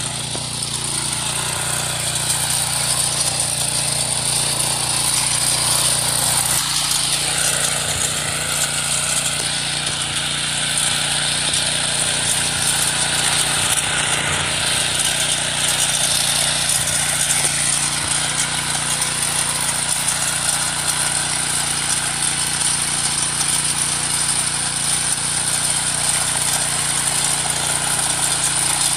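Small engine of an MH610 power weeder running steadily under load as its rotary tines churn through soil. The engine note shifts slightly about six and a half seconds in.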